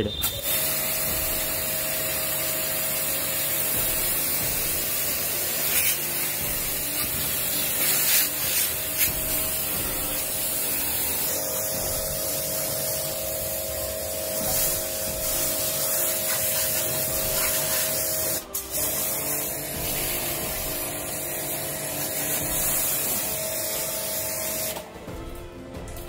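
Water-wash pressure pump running, its spray gun jetting water onto the fins of a split AC outdoor unit's condenser coil: a steady hiss of spray over the pump motor's steady whine. The spray stops for a moment about two-thirds through and ends near the close.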